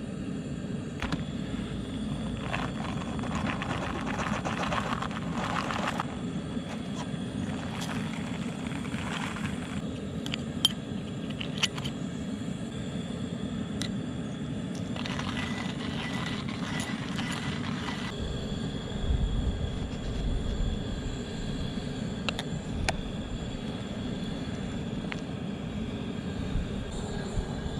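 Coleman propane camp stove burner running with a steady low rush under a pot of heating water. A whole-bean coffee bag crinkles a few seconds in, and a hand-cranked coffee grinder grinds for a few seconds about halfway through.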